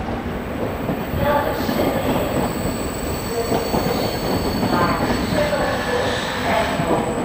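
Freight train hauled by a class 1600 electric locomotive rolling slowly over the station tracks: a steady rumble with the wheels squealing in short bouts about five times.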